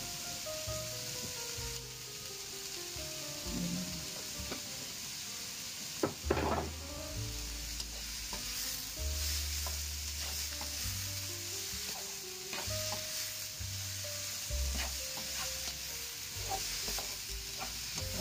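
Hairy gourd strips sizzling in hot oil in a nonstick wok while a plastic spatula stirs and tosses them, scraping and tapping against the pan. A louder knock comes about six seconds in.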